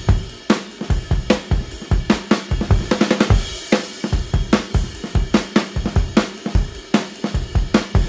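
Background music with a steady drum-kit beat: kick, snare and hi-hat.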